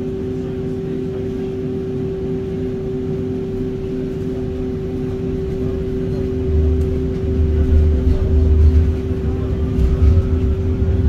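Cabin sound of a T1 tram: a steady electrical hum while it stands at the stop. About six seconds in, a low rumble builds as it pulls away, with a faint rising motor whine near the end.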